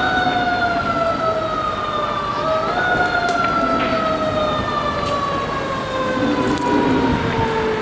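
Emergency vehicle siren wailing: its pitch climbs at the start and again after about two and a half seconds, then slides slowly down each time, over a steady rumble of traffic.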